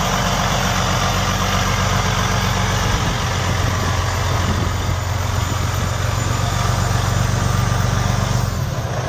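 Detroit Diesel Series 60 14-litre inline-six turbo diesel of a Freightliner Columbia semi tractor running as the truck pulls away and turns at low speed. The engine note shifts about three seconds in.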